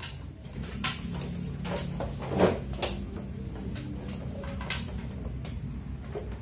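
Plastic front cover of a split air conditioner's indoor unit being slid sideways and pulled off its catches: several separate sharp plastic clicks and snaps.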